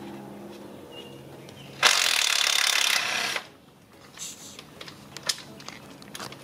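Small cordless impact wrench running in one burst of about a second and a half, loosening an 8 mm bolt on the engine's crankcase breather, followed by a few light clicks of the socket on the bolt.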